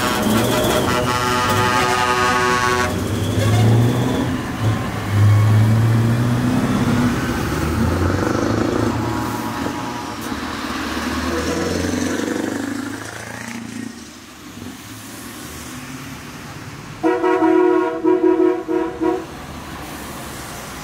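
A truck horn blows a long blast that cuts off about three seconds in, followed by the rumble of a diesel lorry engine pulling past. Late on, another truck horn sounds a run of short toots.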